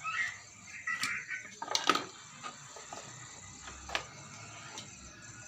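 A few sharp clicks and knocks over a faint steady hiss.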